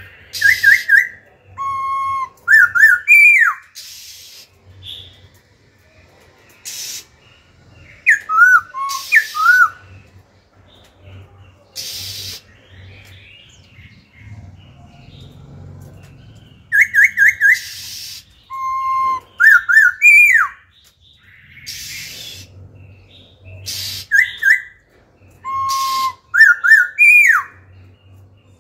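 Caged laughingthrush singing loudly in repeated bursts of varied whistled song. Each burst mixes quick runs of short clear notes, a held lower note and slurred whistles that rise then drop, broken by short harsh hissing notes.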